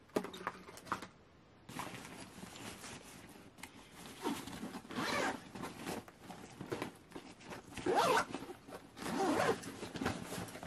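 Zipper of a nylon Wilson Roland Garros tennis racket bag being worked in several uneven zips, the loudest about eight seconds in, with a few light clicks of handling at the start.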